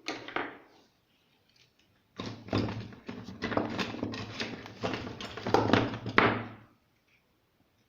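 Knocks and clatter of hard parts being handled: a short burst at the start, then a dense run of sharp knocks for about four seconds.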